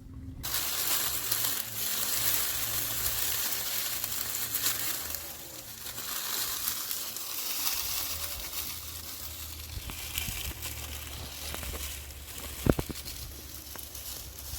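Food sizzling in hot oil in a pan, the sizzle starting suddenly, loudest for the first few seconds and then settling lower. A single sharp click comes near the end.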